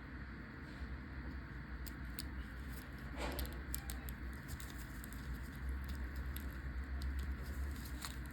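Faint, scattered small clicks and scratches of plug parts and wires being handled, over a steady low hum.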